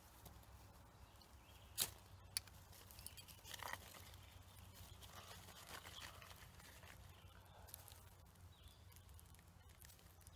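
Faint handling of dry sticks on leaf litter as kindling is laid for a campfire: two sharp clicks about two seconds in, then a brief rustle, and low, quiet movement for the rest.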